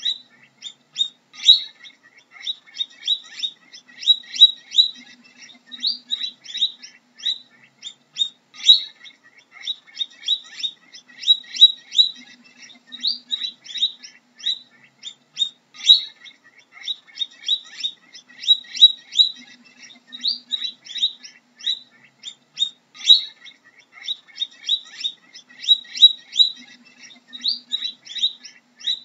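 Guinea pig squeaking: a continuous run of short, high-pitched, chirp-like squeaks, several a second.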